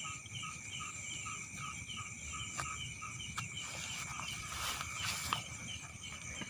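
Night chorus of insects and frogs in rice fields: steady high-pitched trilling, with a repeating chirp about three times a second that fades out partway through.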